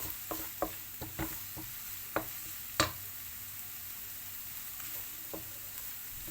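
Sliced onion and garlic sizzling in oil in a large frying pan while a utensil stirs them, tapping against the pan several times, most often in the first half and loudest about three seconds in. The onion is being cooked until it softens.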